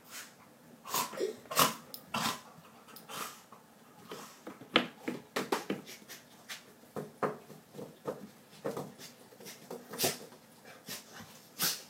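A dog making short, irregular sniffing and snuffling sounds close up.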